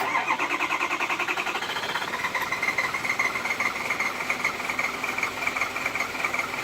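Ford 6.0 Power Stroke diesel cranking on the starter without firing: a fast, even chugging with a whine that rises over the first two seconds and then holds steady. This is a crank-no-start that the owner likens to fuel starvation; he suspects the high-pressure oil pump (HPOP) is not building injection pressure.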